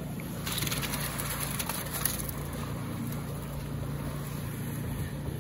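A small engine runs steadily with a low hum. About half a second in, wet concrete gives a gritty scraping for under two seconds.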